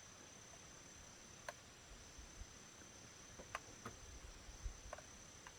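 Near silence: a faint, steady, high-pitched insect trill, with a few light clicks and knocks scattered through and a soft low rumble in the middle.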